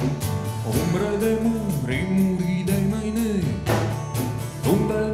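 Live band music: acoustic guitars strumming over steady percussion, with a gliding melody line carried on top.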